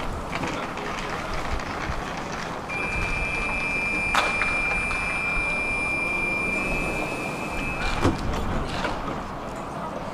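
Tram running with a steady rumbling noise. A steady high-pitched tone sounds for about five seconds, starting a few seconds in, and two sharp knocks come about four and eight seconds in.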